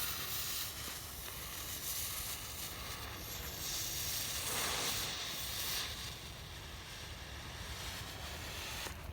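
Colossal Smoke Bomb firework hissing steadily as it burns and pours out smoke, louder around the middle and cutting off suddenly near the end.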